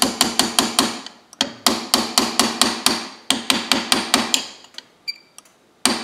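Small brass hammer tapping a brass punch to drift a HIVIZ rear sight sideways into the dovetail of a Ruger 10/22 barrel: rapid light taps, about five a second. The taps come in runs, with a short pause about a second in and a longer stop near the end before they start again.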